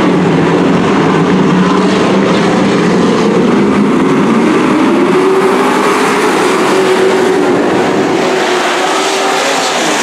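A pack of dirt-track racing trucks running at full race speed, their engines loud and blending into one sound. About five seconds in, one engine's note climbs as it accelerates.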